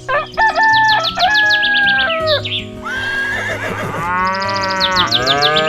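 Background music with animal calls mixed in: warbling calls that bend up and down in pitch over a steady backing.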